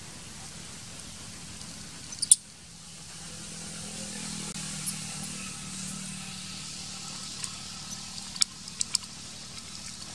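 Outdoor ambience: a low steady hum that swells in the middle, with a few brief high-pitched squeaks or clicks, once about two seconds in and three close together near the end.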